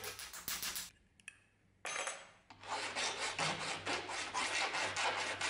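Quick light hammer taps on a thin brass strip over a small bench anvil in the first second. After a pause, a hand file rasps steadily back and forth across a small brass strip.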